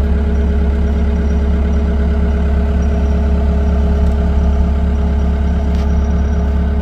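Caterpillar 242D3 skid steer loader's diesel engine idling steadily.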